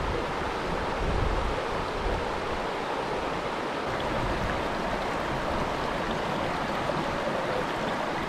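Small mountain stream rushing steadily, with a low rumble of wind on the microphone.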